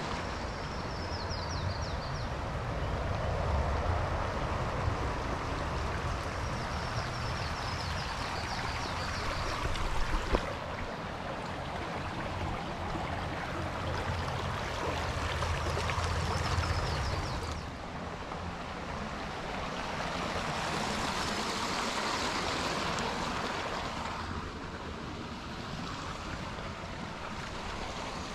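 Shallow creek water running over rocks: a steady rushing hiss, with a low wind rumble on the microphone for the first half that falls away after about seventeen seconds.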